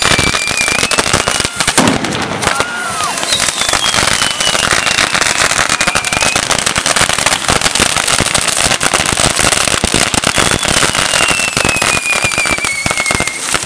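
Fireworks on a wooden frame crackling and popping densely as they spray sparks. Two whistles fall slowly in pitch through the crackle, one a few seconds in and one near the end.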